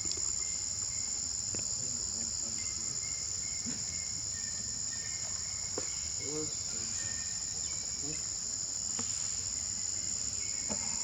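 Steady high-pitched drone of insects, with a few faint short sounds beneath it.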